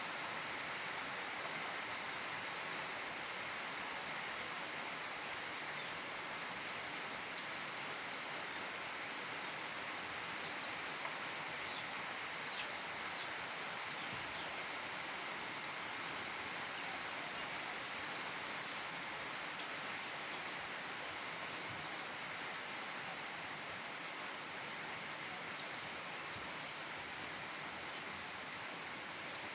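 Steady rain falling, an even hiss with occasional sharper drop ticks scattered through it.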